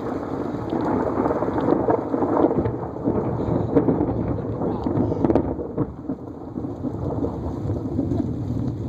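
Thunderstorm: thunder rumbling continuously over steady rain.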